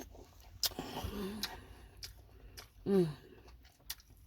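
A person chewing a mouthful of crisp apple, with a few sharp crunching clicks. There is a short hummed sound about a second in and a louder, brief falling vocal sound about three seconds in.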